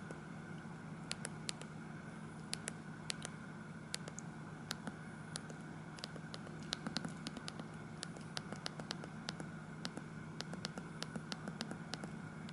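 Steady low hum and hiss with many short, sharp clicks at irregular intervals; no ringtone is playing.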